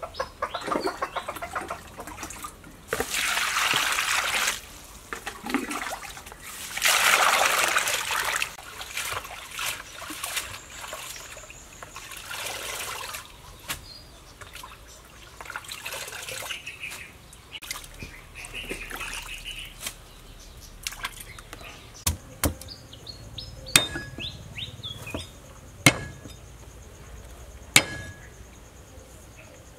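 Water splashing as a tub of fresh leaves is washed by hand, loudest in two longer bursts in the first half. Near the end, a few sharp chops of a cleaver on a chopping board, about two seconds apart.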